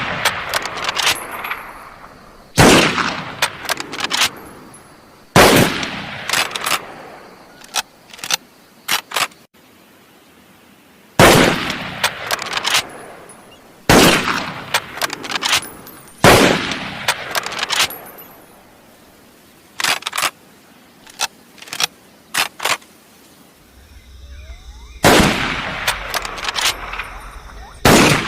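Type 97 rifle firing single shots, about seven, each loud crack followed by a long echoing tail fading over a couple of seconds. Sharp, quieter clicks come between the shots, and a low steady rumble joins in near the end.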